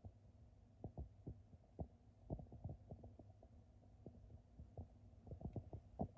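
Near silence: a low steady hum with scattered soft, dull thumps of handling noise from the handheld camera.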